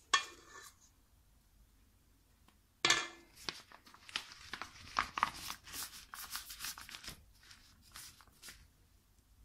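Plastic piping bag crinkling and rustling as it is handled and filled with meringue: a short burst at the start, then a run of crackles from about three seconds in that dies away near the end.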